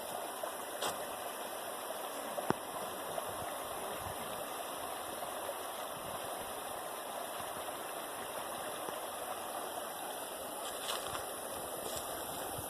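Steady rush of flowing water, with a sharp click about two and a half seconds in.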